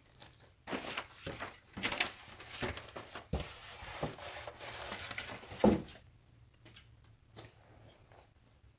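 Paper documents and a plastic sleeve being handled and rustled, with irregular crinkles and a couple of soft knocks, stopping about six seconds in.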